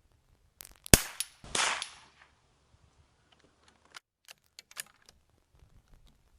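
A single rifle shot about a second in, followed about half a second later by the bullet striking a steel target, which rings briefly with a high note. A few light clicks follow a few seconds later.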